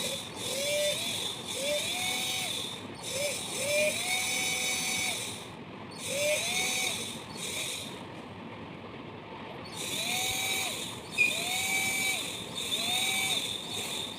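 Cordless drill motor triggered in about ten short runs. Each run rises in pitch as the motor spins up, holds briefly and stops, with a pause of a couple of seconds midway.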